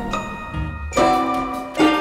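Background music: bright, ringing struck notes, one about a second in and another near the end.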